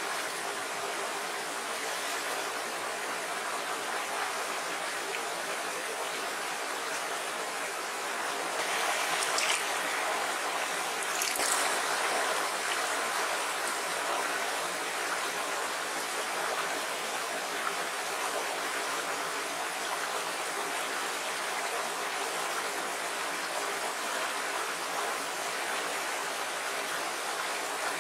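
Small shallow rocky stream flowing over stones, a steady even rush of water, swelling louder twice about a third of the way in.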